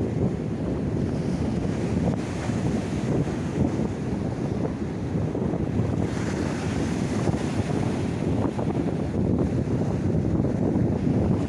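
Mediterranean sea waves washing in, with two swells about 2 seconds and 6 seconds in, under wind rumbling on the microphone.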